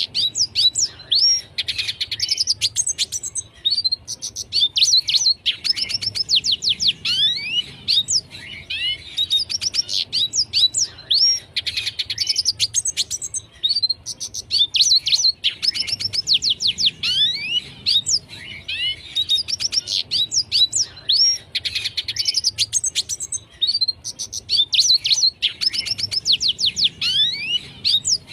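Red siskin singing: rapid twittering phrases of quick rising and falling notes, repeated every three to four seconds.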